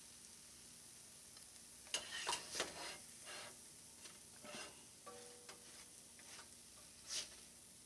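Potato pancakes sizzling faintly in oil in a cast-iron skillet. A spatula scrapes and knocks against the pan a few times as they are lifted out, loudest about two seconds in.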